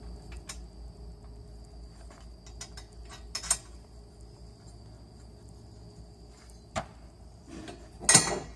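Small metallic clicks and clinks of steel hardware being handled as a flange nut is hand-threaded onto a U-bolt, with a louder clatter of metal near the end.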